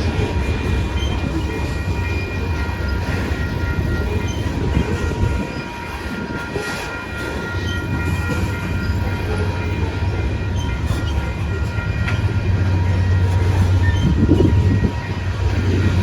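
A train rumbling past on the rails, with a steady low rumble that eases briefly midway and builds again near the end, and a few faint steady tones above it.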